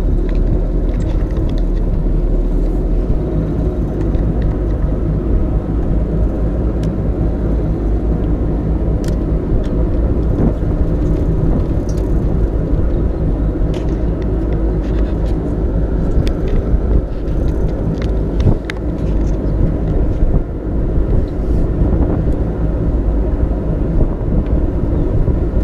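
Motorboat engine running steadily underway, a low constant drone, with wind buffeting the microphone.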